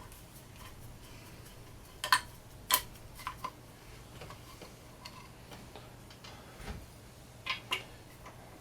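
Hand tools working on a mini mill's fine-feed cover and its screws: scattered sharp metallic clicks and taps, two loud ones about two seconds in and a close pair near the end, over a faint steady low hum.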